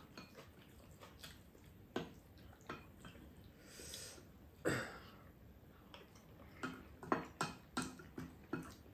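Wooden spoons clicking and scraping against ceramic bowls as two people eat, in scattered short knocks that come more often near the end. About halfway through there is one louder, short throat or mouth sound.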